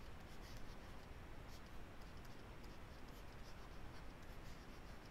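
Faint scratching of a stylus writing on a tablet, in short irregular strokes, over a low steady room hum.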